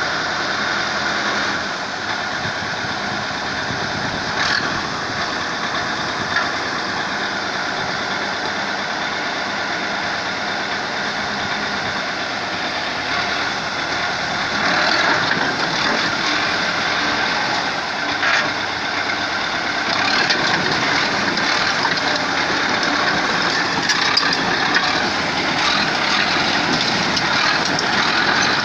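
A heavy vehicle's engine running steadily, with a few short knocks over it.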